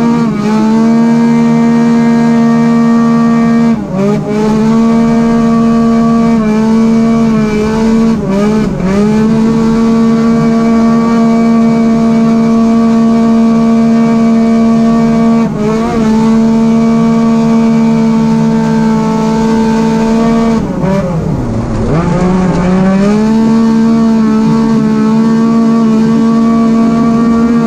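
Arctic Cat Wildcat XX race UTV's engine running hard at high, nearly constant revs, heard from inside the cockpit. The revs dip briefly a few times, with one deep drop about 21 seconds in before they climb back up.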